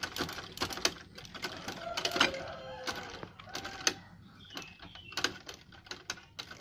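Manual treadle sewing machine running on its freshly rejoined drive belt, its mechanism giving irregular clicks and knocks about two to three times a second.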